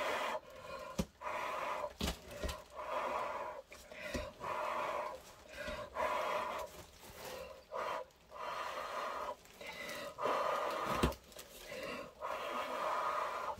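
A person blowing hard, over and over, onto wet acrylic paint to spread it out into a bloom: about a dozen long puffs of breath, each under a second, with quick intakes of breath between.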